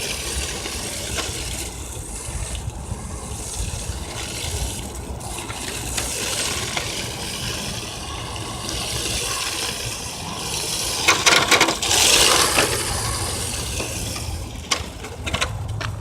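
Electric 1/10 RC drift car running and sliding on hard TPU 3D-printed tires, the tires scrubbing against the ground, with a louder, crackly burst of sliding about eleven seconds in.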